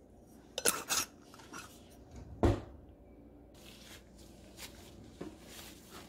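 Kitchen handling noises: a few light clicks and taps, one solid knock with a low thud about two and a half seconds in, then soft rustling of disposable plastic gloves working a ball of bread dough.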